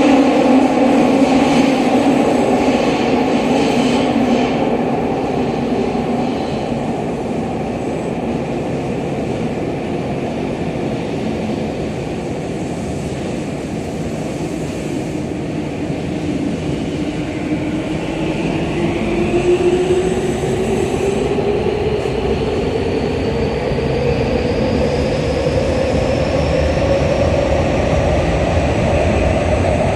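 Running sound inside a Tokyu 5000-series subway car in a tunnel: a steady rumble of wheels on rail with the electric traction motors' whine. About halfway through, the whine starts climbing steadily in pitch as the train gathers speed.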